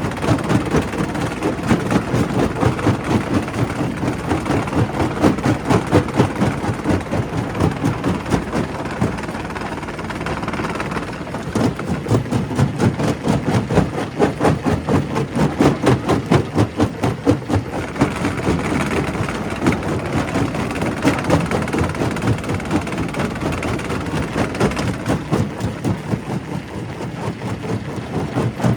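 Primary rock crusher running, with a dense, continuous crunching and knocking of rock being broken over a steady machine drone. The crunching swells and eases, with a short lull about ten seconds in.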